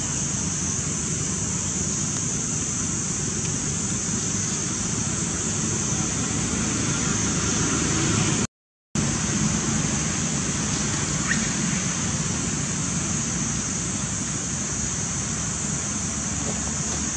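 Steady outdoor background noise: a constant high hiss over a low rumble. It cuts out to silence for about half a second midway through.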